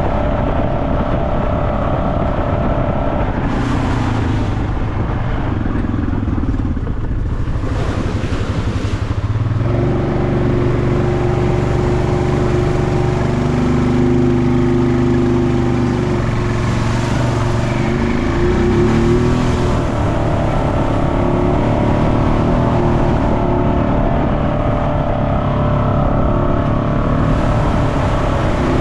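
Off-road vehicle engine running under riding load, its pitch rising and falling as the throttle changes, with a few brief rushes of noise.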